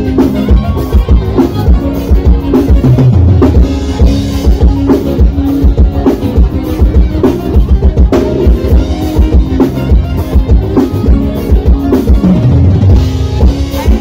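A live band playing loud amplified music, with a drum kit keeping a steady beat over bass, accordion and electric guitar.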